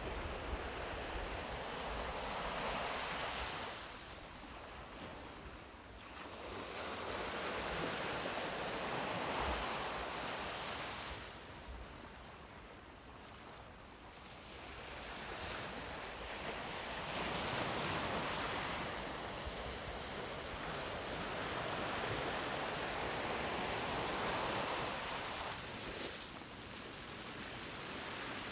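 Sea surf breaking and washing on a sandy shore, swelling and easing in long surges every few seconds.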